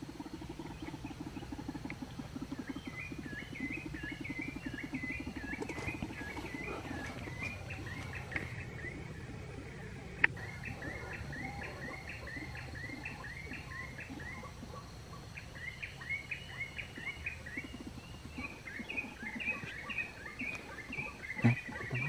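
White-breasted waterhen call played from a lure speaker: long series of short rising notes, about three a second, in several bouts. A low rapid throbbing runs under the first few seconds. There is a single sharp click about ten seconds in.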